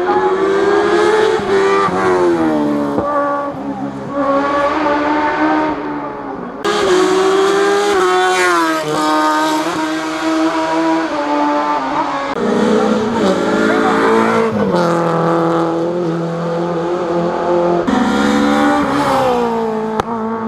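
Hill climb rally cars' engines revving hard as they accelerate through the gears, the pitch climbing and then dropping at each gear change. About six and a half seconds in the sound jumps abruptly to a louder, higher-revving engine.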